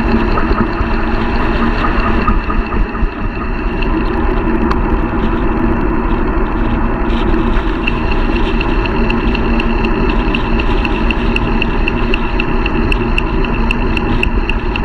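Wind rushing over the microphone of a camera mounted on a moving bicycle, over the steady hum of tyres on asphalt. About halfway through, a light regular ticking comes in, about four a second.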